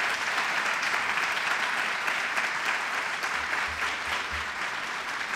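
Audience applauding: many people clapping steadily in a large room.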